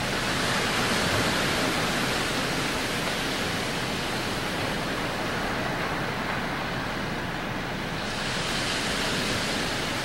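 Waterfall and whitewater rushing over granite boulders, a steady, unbroken rush of falling water.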